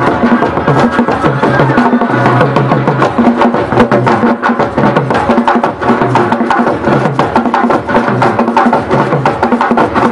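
Loud, fast African percussion music: drums and a woodblock-like click beat out a dense, driving rhythm over a repeating low bass figure.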